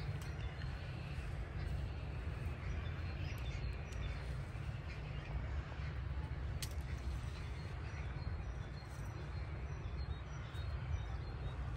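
Steady low wind rumble on the microphone while nylon pop-up tent fabric rustles as it is shaken out and spread, with a few faint bird calls.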